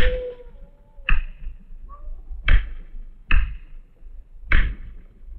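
Slow footsteps descending a staircase: five or six sharp, separate footfalls, about one a second, each ringing briefly.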